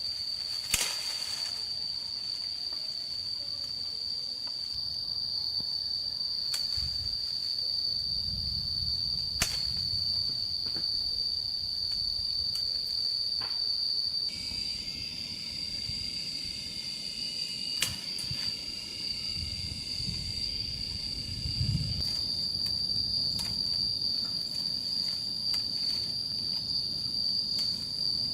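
Insects singing one steady high-pitched drone, with a few sharp clicks or snaps (about a second in, near the ten-second mark and again near eighteen seconds) and low rustling beneath.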